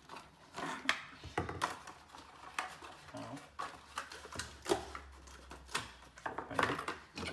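A cardboard box and a plastic bag being handled while rubber scooter handlebar grips are unpacked: a string of rustles, crinkles and light knocks.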